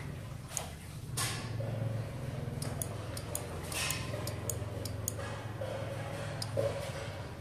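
Small electromagnetic relay clicking on and off about a dozen times in short sharp clicks as the light sensor is shaded, switching the lamp. A steady low hum runs underneath.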